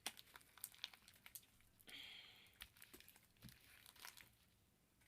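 Faint sticky clicks and crackles of homemade glue slime being squeezed and pulled apart in the hands, many small pops in a row.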